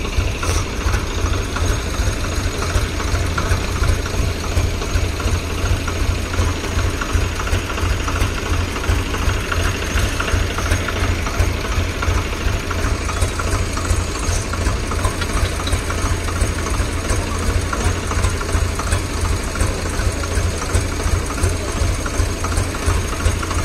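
Swaraj 834 XM tractor's three-cylinder diesel engine idling steadily up close, with a regular low throb.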